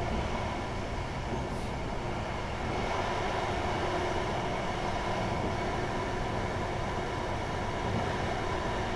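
Steady running noise heard inside the passenger cabin of a Pesa 218Mc diesel train travelling at speed: the drone of the diesel engine and the wheels on the rails, with a steady hum.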